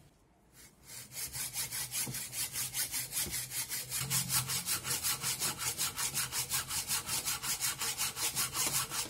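Hand hacksaw with a bimetal blade cutting through a cast cylinder head: an even, rapid rasp of saw strokes, several a second, starting about a second in.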